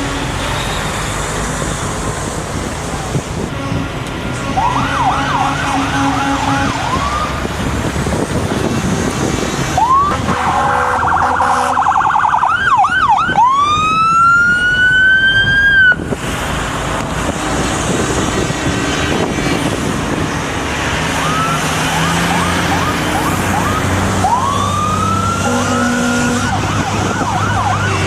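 Several emergency-vehicle sirens switching between a fast yelp and a long rising wail, one cutting off sharply about sixteen seconds in, over heavy engine and traffic noise, with steady horn blasts sounding now and then.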